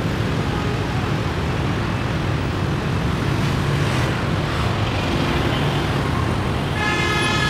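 City street traffic: a city bus drives past close by among many motorbikes, a steady low engine rumble over road noise. Near the end a steady pitched tone joins in.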